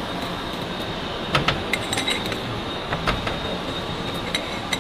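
Scattered metallic clinks and clicks from a long-handled wrench working the jaws of a large lathe chuck, over a steady machine-shop hum with a thin high whine.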